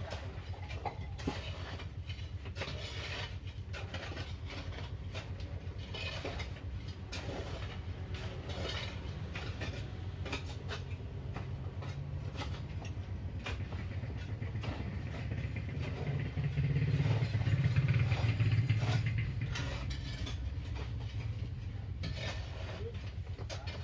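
Steady low rumble with scattered short clicks, swelling louder about two-thirds of the way through and then settling back.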